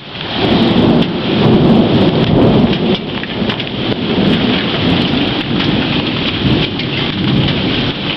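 Thunder rumbling over steady heavy rain; the rumble swells about half a second in and is loudest in the first three seconds, then rolls on more softly.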